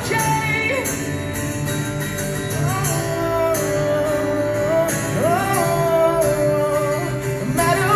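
Acoustic guitar strummed with a singing voice holding long, sliding notes over it, played live through a PA.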